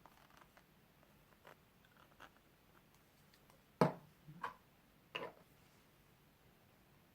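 3D-printed PLA plastic parts being handled and fitted together: faint small clicks and ticks, then three louder short knocks about two-thirds of a second apart past the middle.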